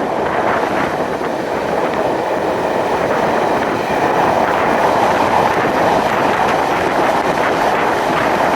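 Steam-hauled passenger train running steadily along the track, a continuous rumble and rush that swells slightly about halfway through, with wind on the microphone.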